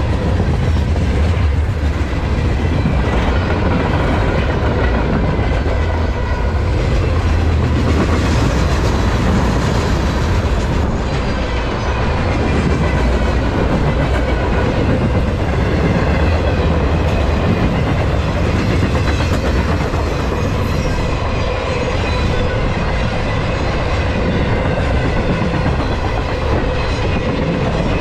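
Freight train's flatcars rolling past: a steady, loud rumble of steel wheels on the rails.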